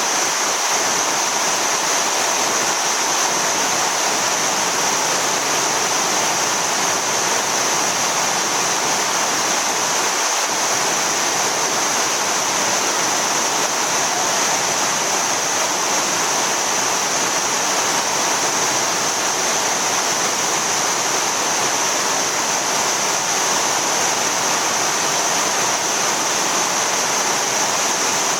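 Yudaki waterfall: water cascading down a rock face in a steady, loud rushing roar.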